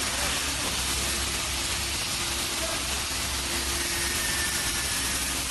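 Production machinery running with a steady hiss and a constant low hum, with faint thin tones over it.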